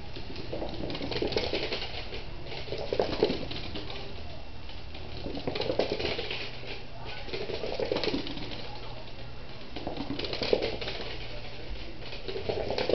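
Small dog's claws clicking and skittering on a hardwood floor in quick bursts every couple of seconds as it runs after a laser dot, mixed with a muffled voice.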